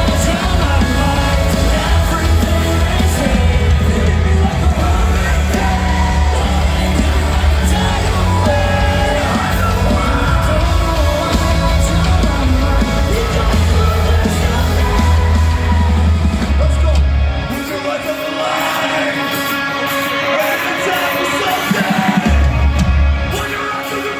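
Rock band playing live and amplified, with vocals over guitars, bass and drums in a concert hall. About three-quarters of the way in, the heavy low end drops out, leaving vocals and guitar; it comes back for a brief hit near the end.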